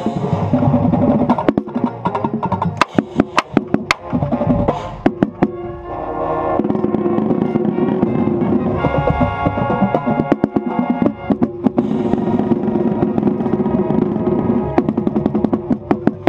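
Marching band playing, heard up close from a camera mounted on a marching bass drum: the drumline's strokes are sharp and loud, with a run of separate hits in the first few seconds, then the horns hold sustained chords over the drums from about six seconds in.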